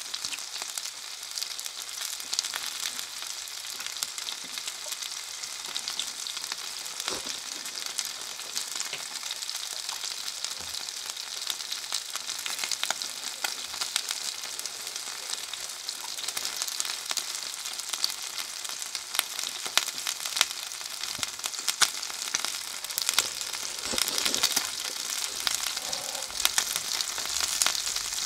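Chicken skewers sizzling as they cook: a steady hiss with frequent small crackles and pops, a few louder pops near the end.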